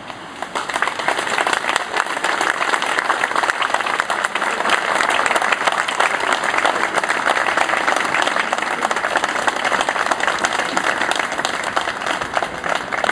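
Crowd applauding, building up within the first second and then holding steady as a dense, even clapping.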